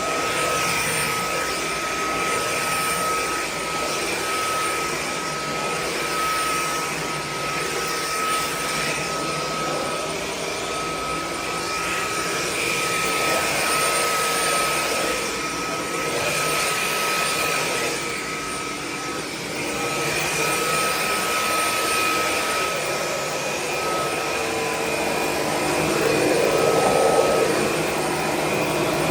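Dreo cordless stick vacuum running with a steady high motor whine and airflow rush, its loudness swelling and dipping every few seconds as it is pushed back and forth over carpet and tile.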